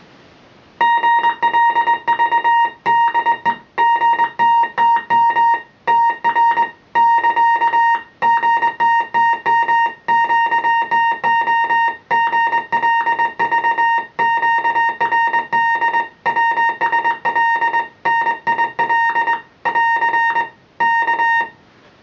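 Morse code sent by hand on a straight key, heard as a single steady tone of about 1 kHz keyed on and off in dots and dashes from about a second in. It spells out a ship's TR report, GTTM QTO GLV QRD WSL NIL: the Cunard liner Mauretania's call sign, 'leaving Liverpool', 'bound for New York', 'no traffic'.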